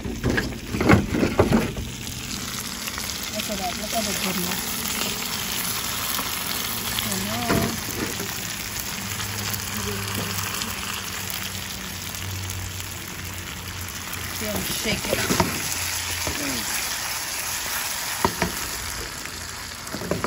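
Seasoned hassa (armored catfish) sizzling steadily as it fries in an aluminium pot. There are a few knocks and scrapes in the first couple of seconds.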